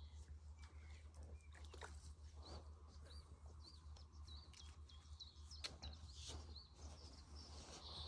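Faint bird song: a run of short, repeated chirping notes, about two or three a second, from the middle of the stretch, over a low steady hum.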